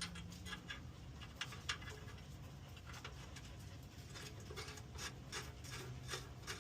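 Hand ratchet clicking in a faint, uneven run of short strokes as the rear axle U-bolt nuts are tightened down.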